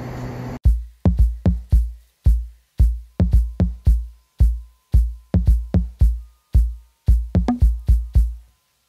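Background music: a drum-machine beat of punchy bass-drum and snare hits, starting abruptly under a second in and carrying no melody.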